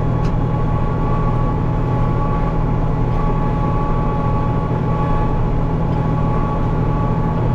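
Farm tractor engine running steadily under load, a low drone with two steady whining tones above it.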